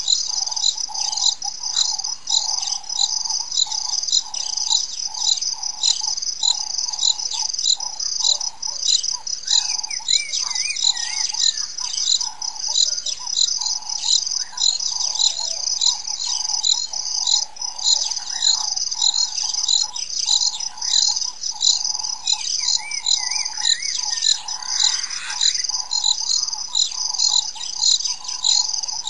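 A steady chorus of insects, chiefly crickets: a high chirring that pulses at an even rhythm over a lower steady drone. Short warbling bird calls break in about ten seconds in and again later.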